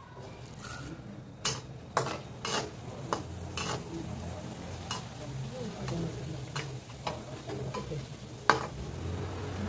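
Prawn crackers (krupuk udang) sizzling as they fry in hot oil in a wok, stirred with a metal slotted spatula that clinks and scrapes against the pan about a dozen times, the loudest clink near the end.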